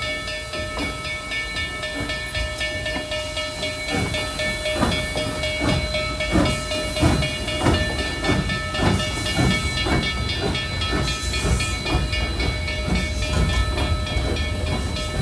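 Narrow-gauge steam locomotive hissing steam and then starting to move: exhaust chuffs begin about four seconds in and come steadily faster as it picks up speed.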